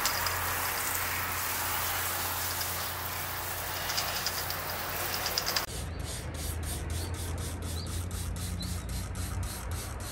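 A hand-pump pressure sprayer hisses as it rinses water over a foamed alloy wheel. A little past halfway this gives way to a brush scrubbing a foamed tyre sidewall in quick, even strokes, about five a second.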